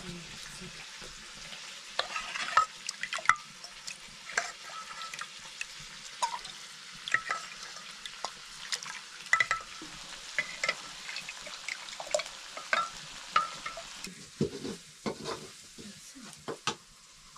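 Steady sizzling hiss of food frying, dotted with sharp clinks and scrapes of a steel ladle against steel pots and a bowl, with a few duller knocks near the end.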